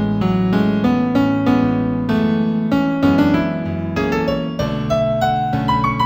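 New-age piano piece in A major, a quick flow of notes over a low accompaniment, the melody stepping upward near the end.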